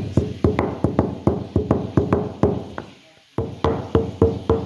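Pestle pounding coriander seeds in a stone mortar: quick, even knocks about four or five a second, each with a short ringing note from the stone. The pounding stops briefly about three seconds in, then carries on.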